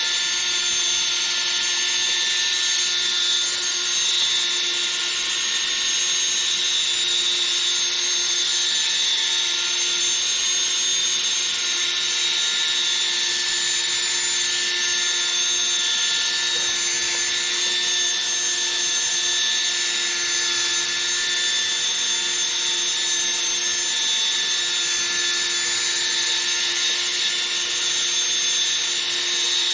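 Cordless drill running steadily with a polishing pad buffing a plastic headlight lens: an even motor whine over a rubbing hiss.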